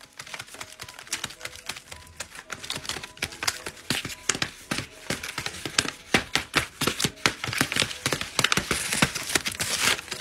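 Paper dragon hand puppet's jaws snapping and tapping shut over and over: a quick run of crisp paper clicks that come thicker and louder after the first few seconds.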